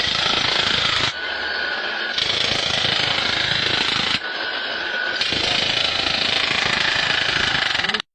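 A loud power tool hammering. Its sound shifts every second or two, with a steady high whine in the quieter stretches, and it cuts off abruptly near the end.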